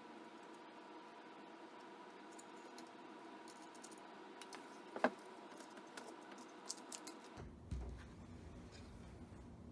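Light, scattered clicks and taps of small metal parts, a screwdriver and screws on a laptop drive case, while an SSD is being fitted. They come mostly in the second half, with one sharper click about five seconds in. A faint steady hum lies under them and gives way to a low rumble near the end.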